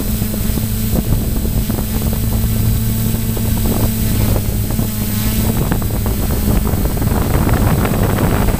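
A radio-controlled model airplane's motor and propeller running with a steady hum, picked up by its onboard camera, with wind rushing and buffeting over the microphone.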